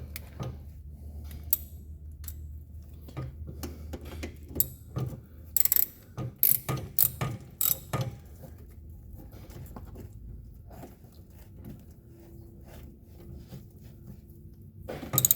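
A ratchet wrench clicking in short runs as a drain plug is tightened and torqued down, with sharp metallic clicks coming two or three a second for a few seconds in the middle.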